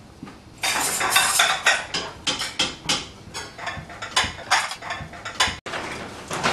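Pots, pans and utensils clattering at a kitchen stove: a string of quick metal knocks and scrapes starting about half a second in, cut off for an instant near the end and then fainter.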